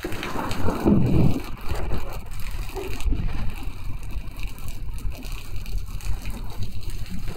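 Heavy rain falls steadily on a wet paved terrace and lawn. A low rumble of thunder swells about a second in.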